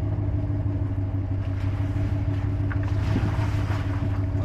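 Steady engine and road drone of a moving vehicle, heard from inside the cabin, with an even low hum and no change in pitch.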